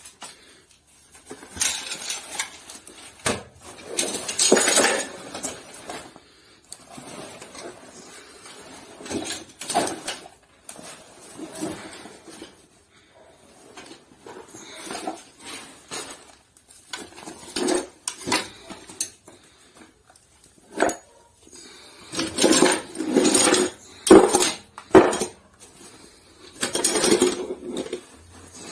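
Camping gear being handled and rummaged through: irregular clinks and clatters of metal items like cookware and utensils, mixed with rustling, coming in bunches with short lulls and busiest near the end.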